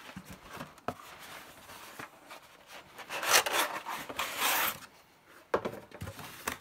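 A cardboard software box and its contents being handled: rubbing and scraping, loudest from about three to five seconds in, with a few small clicks and a knock near the end.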